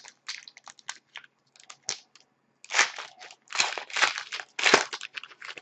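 Crinkling and tearing of a trading card pack wrapper, with cards being handled, as a pack of hockey cards is opened. The rustle comes in irregular bursts, louder about halfway through.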